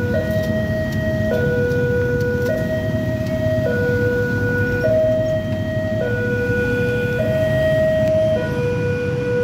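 Railway level-crossing warning alarm sounding, a higher and a lower tone taking turns about every second, the signal that the crossing is closed for an approaching train. Underneath, the low rumble of motorcycles idling.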